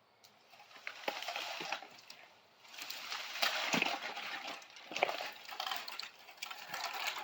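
Rustling of cut bamboo canes and their dry leaves being handled and dragged, with scattered knocks and clicks of the stalks.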